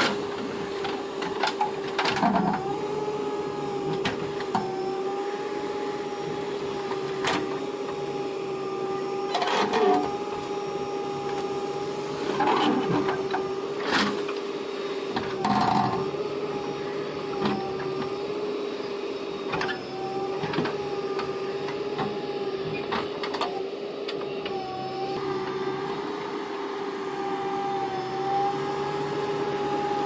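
JCB 3DX backhoe loader's diesel engine running steadily at working speed with a constant whine, its pitch dipping briefly a few times. Scattered clanks and scrapes come from the backhoe bucket digging into the soil bank.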